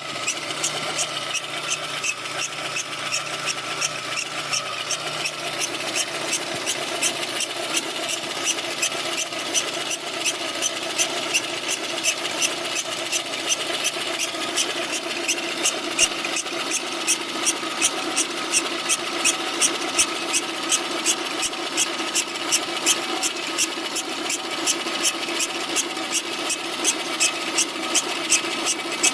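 VAZ-2108 engine idling with a steady whistle from its reinforced Gates timing-belt tensioner roller, which has gone bad after about 10,000 km. A regular ticking runs alongside and grows stronger about a third of the way in.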